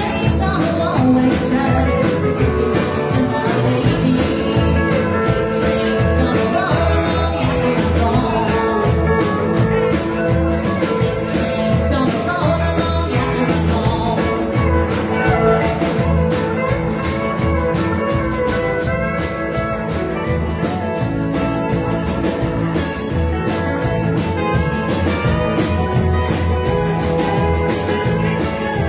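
Live country band playing: electric guitar, drum kit and upright double bass keeping a steady beat, with a woman singing.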